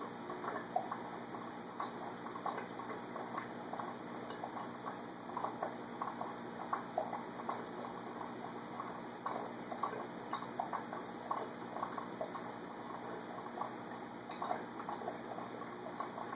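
Home aquarium bubbling: air from the tank's bubble curtain rising and breaking at the surface, making a steady gurgle with many small irregular pops over a faint steady hum.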